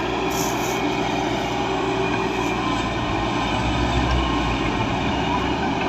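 Heavy diesel earthmoving machinery running steadily. The engine rumble swells deeper about three to four seconds in.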